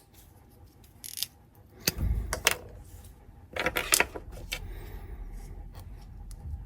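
Sharp clicks and rattles of small plastic and metal parts being handled: EV6 electrical connector plugs being slid up and popped off the fuel injectors of an LS engine's intake manifold.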